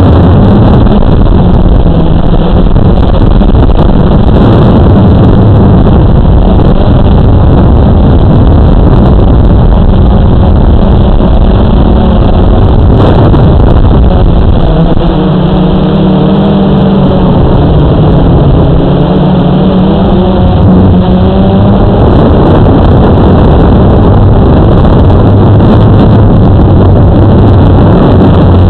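Blade 350 QX2 quadcopter's electric motors and propellers droning loudly, picked up by the drone's onboard camera, with rushing noise over it. Midway the hum wavers up and down in pitch as the motors change speed.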